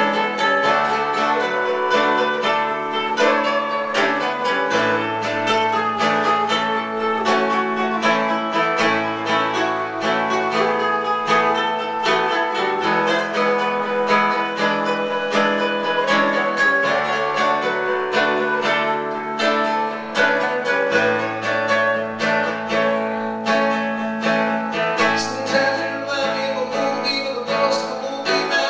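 Acoustic guitar played fingerstyle live: a quick flow of plucked notes over low bass notes that are held and change about every four seconds in a repeating chord pattern.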